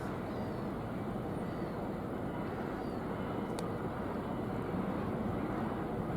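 Steady low outdoor rumble with one sharp click about three and a half seconds in.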